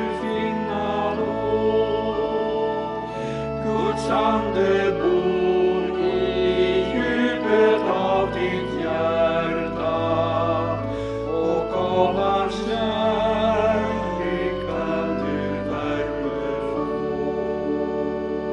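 A slow Swedish hymn sung with instrumental accompaniment, with long held notes.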